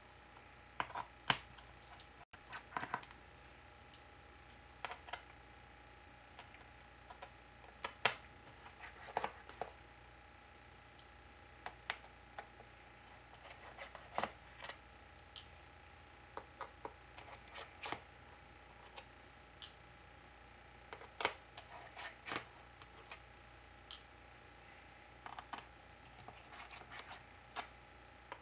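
Small pentalobe screwdriver working the bottom-case screws out of a MacBook Air, with light clicks and ticks at irregular intervals as the driver seats and turns and the tiny screws are handled. A faint steady hum runs underneath.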